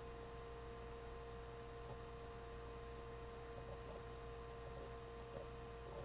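Faint steady electrical hum with a few thin steady tones over a low hiss: the recording's background noise between narration.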